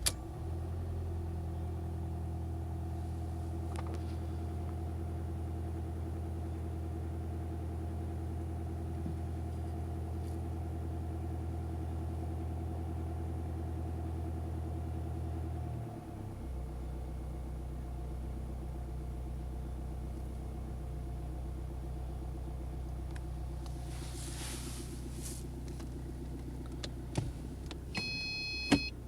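Mercedes W211 E 220 CDI four-cylinder diesel engine idling just after starting, a steady low hum. About halfway through, the idle steps down to a lower, steady pitch. Near the end come a few clicks and a brief high electronic tone.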